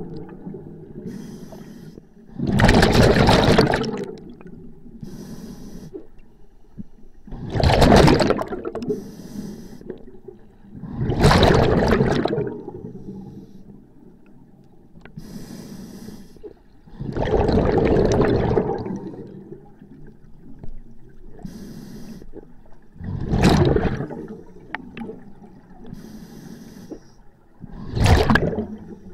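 Scuba diver breathing through a demand regulator underwater: six loud gushes of exhaled bubbles at irregular intervals of about four to six seconds, with a quieter hiss between them.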